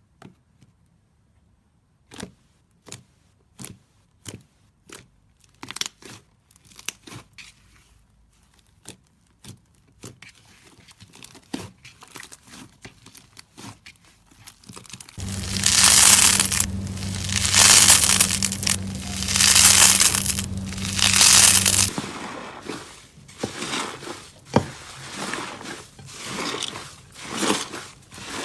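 Slime being handled by hand close to the microphone: a steady run of sharp sticky pops, roughly every two-thirds of a second. From about halfway it turns into louder, swelling squishes about every two seconds over a low hum, then back to scattered pops and crackles near the end.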